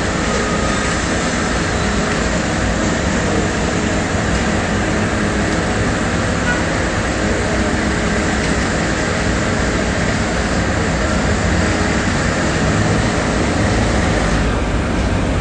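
Concrete mixer truck's diesel engine running steadily at a standstill, a loud, even low drone.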